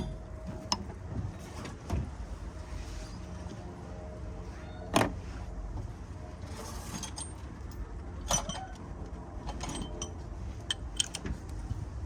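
Metal hand tools clinking and scraping on the engine as a wrench and socket are fitted to a tight cylinder head bolt, with sharper knocks about 2, 5 and 8 seconds in, over a low steady hum.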